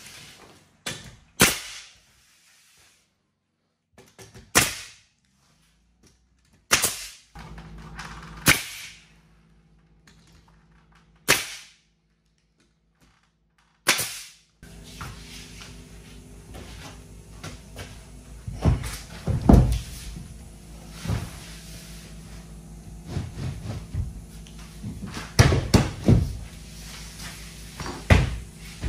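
Pneumatic nail gun firing single nails through OSB sheathing into the wall framing: sharp bangs a second to a few seconds apart, about seven in the first half. From about halfway a steady low hum runs underneath, with further knocks over it.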